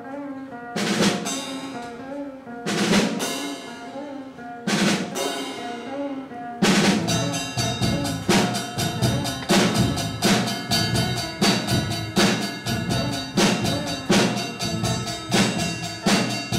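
A small rock band (drum kit, electric guitars, electric keyboard) playing an instrumental song intro without vocals: held chords punctuated by three cymbal crashes about two seconds apart, then a steady drum beat with the full band from about six and a half seconds in.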